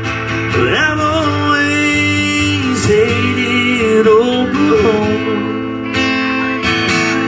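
Acoustic guitar strummed, accompanying a man's singing voice whose words are not made out.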